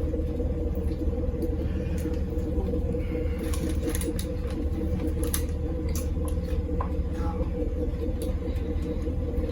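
A steady low hum of room background noise, with faint scattered clicks and soft mouth sounds of eating.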